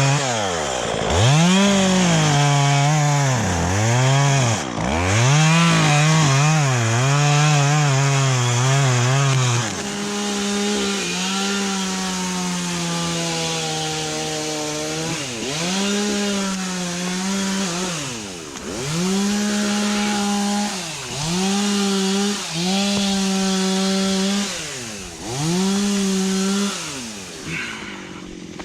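Two-stroke chainsaw cutting eucalyptus wood. The engine note holds steady for stretches, then drops sharply and climbs back again, about a dozen times, as the throttle is eased off and opened again.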